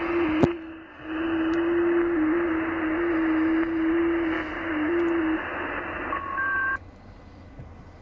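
Shortwave receiver audio on the 30 m amateur band: a steady hiss cut off above about 3 kHz, carrying a single FT8 digital-mode tone near 300 Hz that hops slightly in pitch and ends about five seconds in. Brief higher tones follow near the end, then the hiss cuts off suddenly, as at the switch to transmit on the next FT8 cycle.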